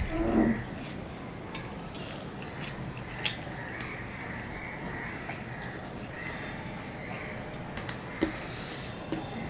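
Eating with the fingers: rice being mixed and mashed on a steel plate, with a few small sharp clicks and soft chewing, and a short mouth sound at the start.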